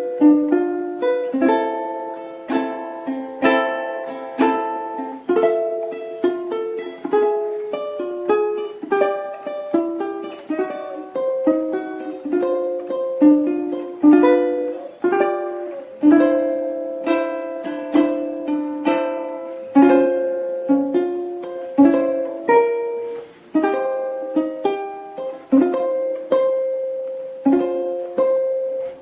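Kanile'a K-1T Premium koa tenor ukulele strung with Galli UX730 tenor strings, played solo: a melody with chords, each pluck ringing out and fading.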